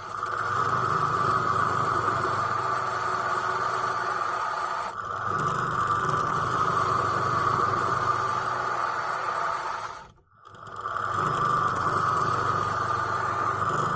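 Small electric grinding tool running steadily as it grinds down the head of a metal pin in a power strip. It cuts out for about half a second some ten seconds in, then starts again.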